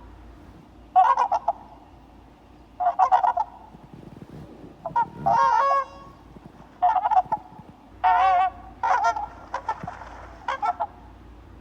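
Goose honking: repeated bouts of harsh, quick honks about every second, with one longer drawn-out call near the middle.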